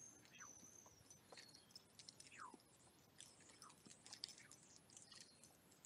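A Maltese puppy faintly chewing and biting at a toy: soft scattered clicks, with a few short falling squeaks.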